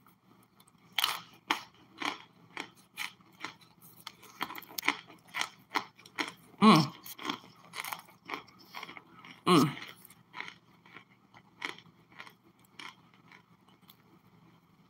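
Crunching and chewing on a solid chunk of cornstarch: irregular crisp crunches, several a second, with two louder ones about seven and ten seconds in.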